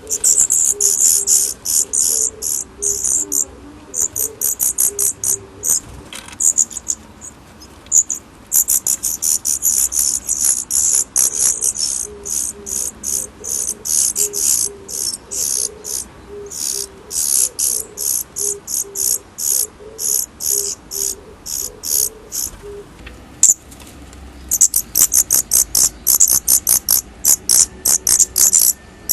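Insects chirping in rapid trains of high-pitched pulses, with short gaps, at a fairly loud level.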